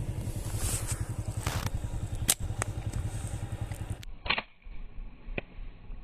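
An engine idling with a fast, even low pulse, and one sharp click about two seconds in. The engine sound stops abruptly about four seconds in, giving way to a quieter, duller background with a short rustling burst and a couple of faint clicks.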